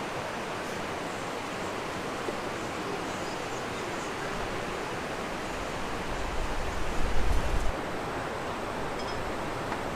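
Steady outdoor rushing noise, with low rumbling gusts of wind buffeting the microphone about six to eight seconds in.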